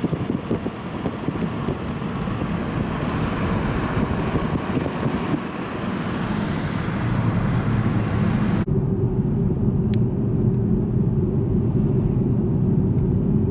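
Road noise of a moving car heard from inside: a steady rush of tyre and wind noise over a low engine drone. About two-thirds of the way in, the hiss drops away abruptly, leaving the low drone of the cabin.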